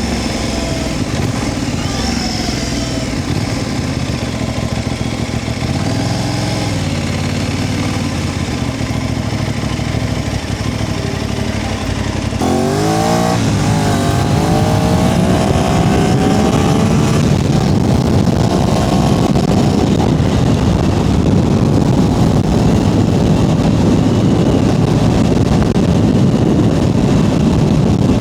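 Aprilia RS660 Extrema's parallel-twin engine running at low revs, then about halfway through it opens up and accelerates, its pitch climbing through a couple of gears. Louder engine and wind noise follow at speed.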